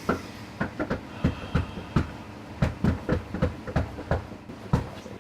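A rapid, uneven series of sharp knocks or bangs on a hard surface, about three or four a second, with brief gaps.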